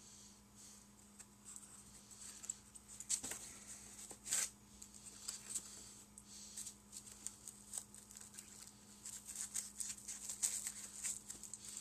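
Faint clicks, scrapes and rustles of small 3D-printed model parts being handled and worked out of foam packing with a utility knife, with two louder rustles about three and four and a half seconds in and busier ticking near the end. A faint steady hum sits underneath.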